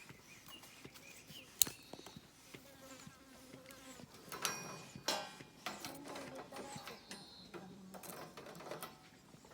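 Wood burning in a fire pit, crackling with irregular sharp pops. One loud pop comes about one and a half seconds in, and the crackling grows busier around the middle.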